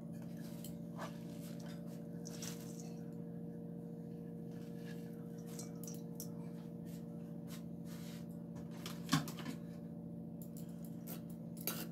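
Chopped fenugreek leaves tipped and settling into a steel bowl of gram flour: faint rustles and light taps over a steady low hum, with one sharper knock on the bowl about nine seconds in.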